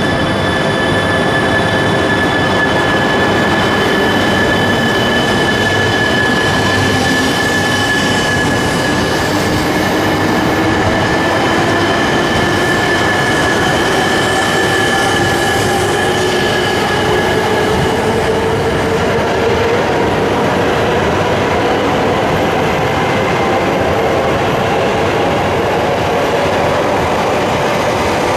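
Shinkansen trainset, an E3 series Komachi coupled to an E5 series Hayate, pulling out and gathering speed past the platform. Steady rolling noise carries a whine that rises gradually in pitch as the train accelerates.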